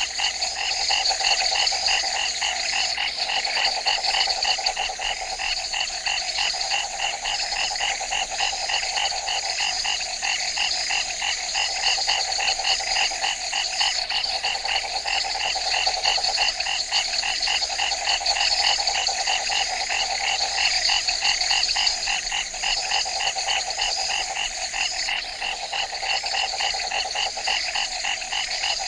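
Dense nighttime chorus of frogs in an Everglades swamp, rapid, evenly pulsing calls overlapping continuously, with a steady high-pitched insect-like buzz beneath.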